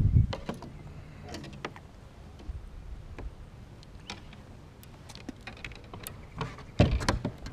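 Scattered light clicks, taps and knocks of a freshly landed fish and fishing gear being handled aboard a kayak, with a louder knock near the end.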